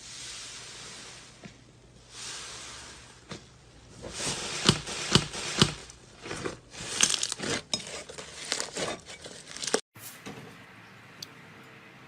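Slime being handled and squeezed: soft hissing swells, then a run of sharp crackles and pops. It cuts off suddenly near the end, leaving a quieter stretch.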